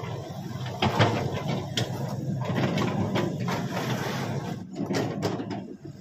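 Shantui SE135 hydraulic excavator's diesel engine running as the machine slews and moves its arm, with scattered knocks and clanks on top.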